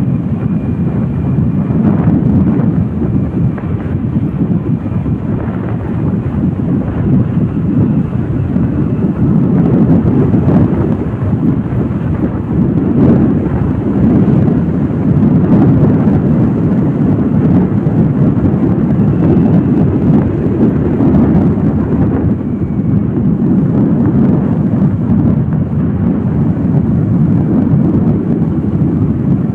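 Steady low rumble of wind buffeting the microphone on a moving motorbike, with road noise from the ride mixed in; it swells and eases a little but never stops.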